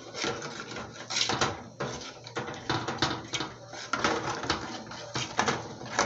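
Metal spoon stirring and scraping sugar around the bottom of an aluminium pudding pan on a gas burner, in quick irregular strokes, as the sugar melts into caramel syrup.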